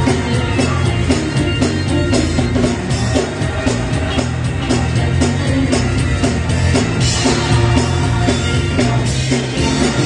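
Live church music: a choir singing over a band of drum kit, electric guitar and keyboard, with a steady driving drum beat and heavy bass.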